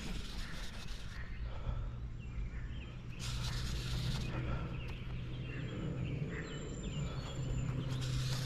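Outdoor creekside ambience: birds chirping over a steady low hum, with two short hissing bursts, one about three seconds in and one near the end.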